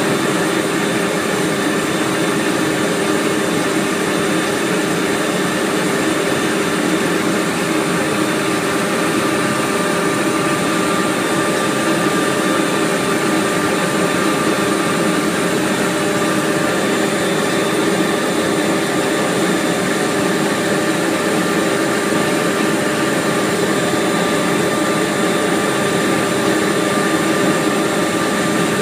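Loud, steady mechanical drone of a running machine: an even rushing noise with several steady humming tones in it.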